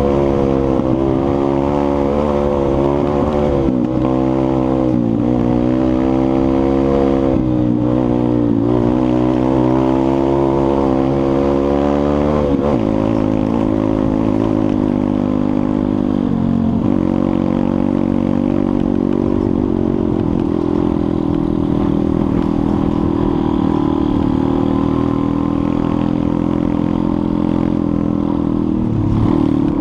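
Pit bike's single-cylinder four-stroke engine under way, revving up and down through gear changes for the first dozen seconds, then running at a steadier, lower pitch.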